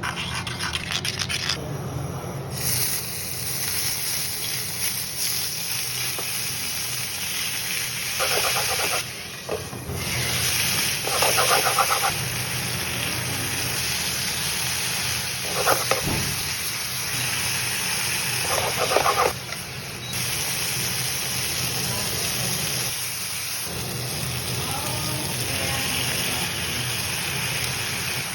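Chicken sizzling in a frying pan, a steady hiss, with a few short scraping passes of a utensil against the pan.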